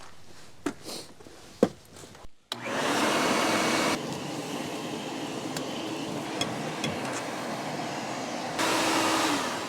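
A few light clicks, then a shop vacuum starts about two and a half seconds in and runs steadily, cleaning out the engine's air filter housing. It is louder for its first second or so and again near the end.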